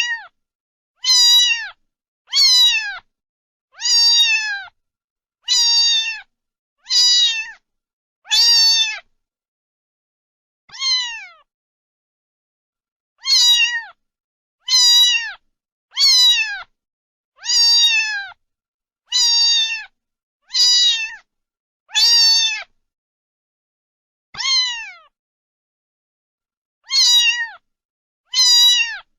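A domestic cat meowing over and over, about one short meow every second and a half, each call dropping in pitch at its end, with a few seconds' pause near the middle.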